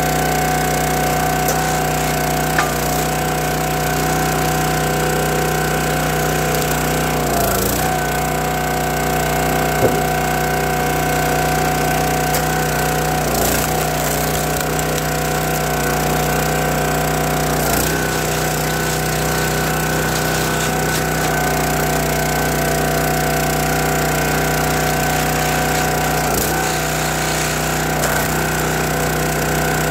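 Gas engine of a County Line hydraulic log splitter running steadily, its pitch dipping briefly four times under load as the ram forces oak and maple rounds through the wedge. A couple of sharp cracks of splitting wood.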